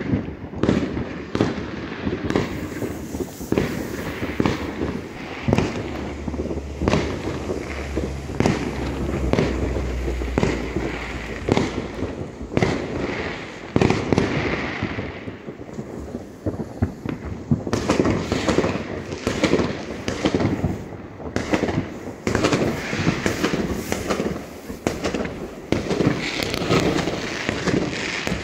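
New Year's fireworks going off in many places at once: a dense, unbroken run of overlapping bangs and sharp pops from aerial rockets and firecrackers.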